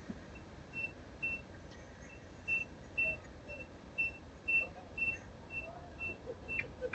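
Carbon monoxide alarm going off: short, high-pitched electronic beeps at one pitch, about two a second, signalling that carbon monoxide is present. A sharp click right at the end.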